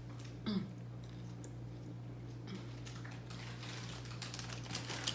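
Close-up eating sounds: sharp clicks and crackles of crunching fried chicken and handling the food and its packaging, coming thickest in the last couple of seconds. A short vocal sound comes about half a second in, over a steady low hum.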